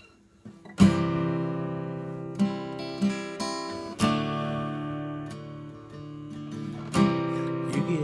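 Acoustic guitar strumming chords and letting them ring out: a loud strum about a second in, a couple of lighter ones, another strong strum about four seconds in and a loud one near the end.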